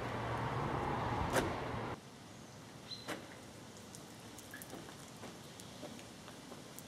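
A steady low motor hum with noise, which stops abruptly about two seconds in, leaving quiet outdoor background with a few faint clicks and a short high chirp.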